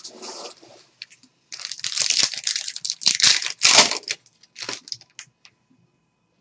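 Foil trading-card pack being crinkled and torn open by hand, in bursts of crackling that are loudest in the middle, then tapering off before stopping.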